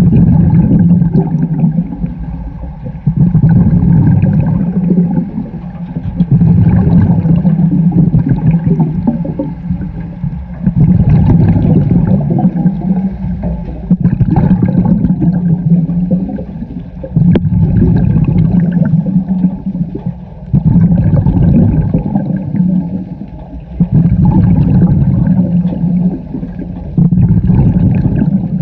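Scuba diver breathing underwater through a regulator: a loud burst of exhaled bubbles gurgling past the microphone about every three to four seconds, each starting suddenly and fading before the next breath.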